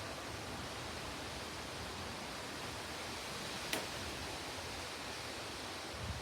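Steady wind, an even hiss, with low buffeting on the microphone near the end. One sharp click about three and a half seconds in.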